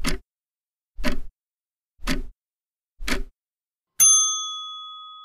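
Quiz countdown timer: a clock-tick sound effect ticking once a second, four ticks, then a single bell ding about four seconds in that rings out and fades over about two seconds, signalling that answer time is up.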